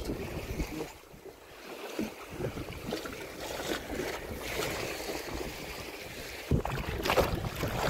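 Wind gusting over the microphone and water lapping against a small fishing boat, with a sharp knock about six and a half seconds in and a few crackles after it.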